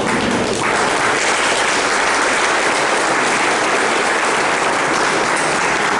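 Audience applauding, the clapping growing fuller about half a second in and holding steady.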